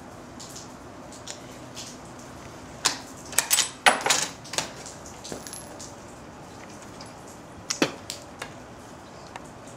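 A run of sharp metallic clicks and clinks: a quick cluster about three seconds in, then a few more near the eighth second.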